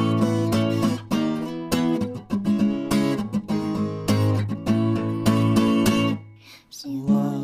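Music: guitar strumming chords in a steady rhythm. It dies away about six seconds in, and a new phrase begins near the end.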